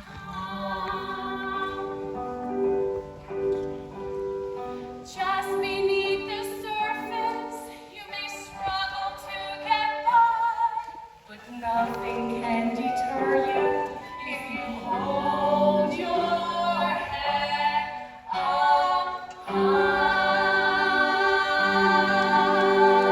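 A group of voices singing a musical-theatre song as a chorus, with female voices prominent. The phrases move through changing notes, then settle a few seconds before the end into one long held chord.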